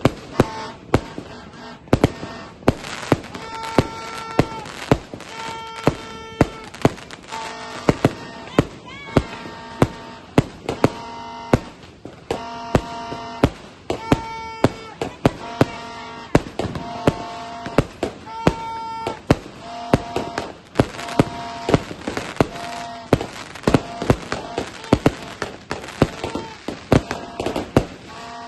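A 100-shot firework cake firing a rapid, continuous series of sharp shots, about two to three a second. Steady tones lasting about half a second sound over many of the shots.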